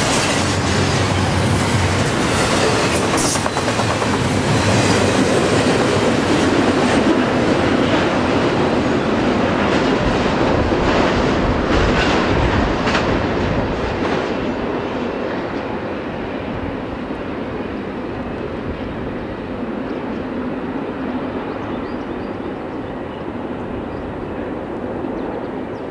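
Double-stack intermodal freight train's well cars rolling past on the rails, steel wheels clicking over the rail joints. About halfway through, the tail end pulls away and the sound drops to a duller, fading rumble.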